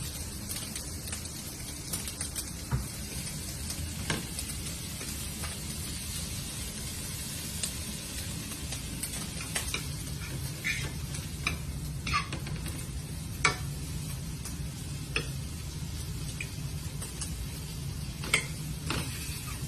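Cut-up chicken breast frying and sizzling in a pan, with a utensil stirring and clicking against the pan now and then.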